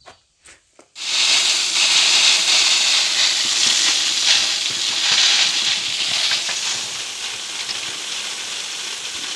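Barley grain pouring from a tipping trailer's outlet slide into a big bag: a steady, dense hiss that starts suddenly about a second in as the slide opens.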